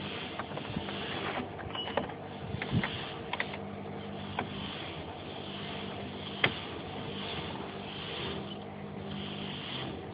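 Scattered clicks and light knocks of a screwdriver, screws and plastic console trim being handled, the sharpest click about six seconds in, over a steady low hum.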